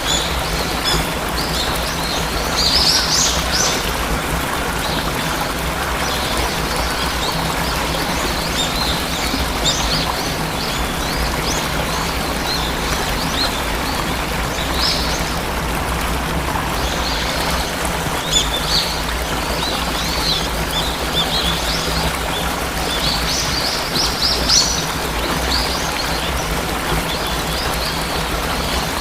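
Steady rushing of a waterfall with birds chirping over it in scattered bursts, the busiest about three seconds in and again near the end.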